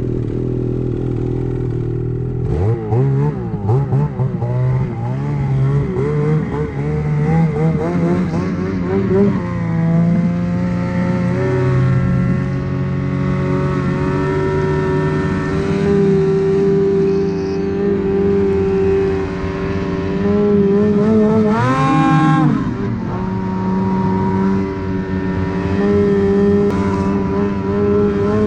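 Ski-Doo Freeride snowmobile's two-stroke engine idling, then revving as the sled pulls away about two and a half seconds in. Its pitch rises and falls for several seconds before it settles into a steady run, with one brief sharp rev up and back down about two-thirds of the way through.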